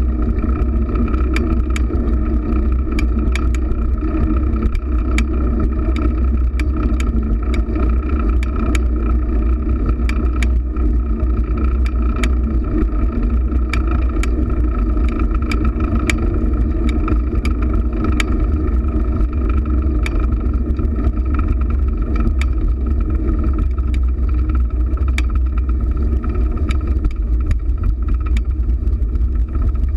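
Handlebar-mounted camera riding on a fixed-gear bicycle over city asphalt. Its microphone picks up a steady, heavy rumble of wind and road vibration through the bike, with a hum over it and frequent small clicks and rattles.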